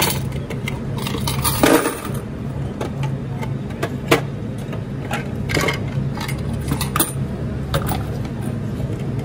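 Quarters clinking and rattling as a hand scoops them out of the coin compartments of an opened U-Turn bulk vending machine: a scatter of short metallic clinks over a steady low hum.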